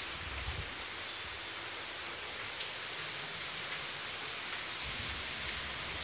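Typhoon rain falling steadily, an even hiss of drops on the garden, roofs and paving.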